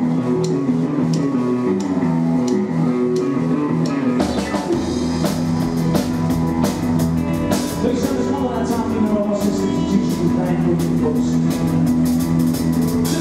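Live rockabilly band playing an instrumental passage on drum kit, electric guitar, upright double bass and piano, with a steady beat. The sound fills out with bass about four seconds in.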